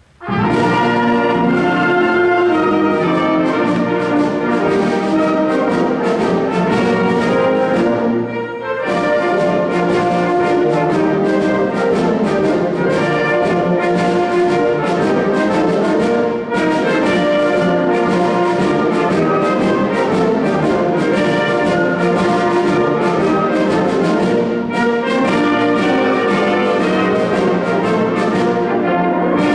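School wind band of brass, woodwinds and percussion playing, the full band coming in loud all at once at the start, with a short break about eight seconds in.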